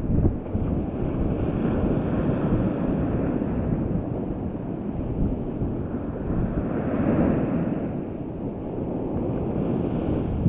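Small surf breaking and washing up a sandy beach, with wind rumbling on the microphone. The wash swells about two seconds in and again around seven seconds.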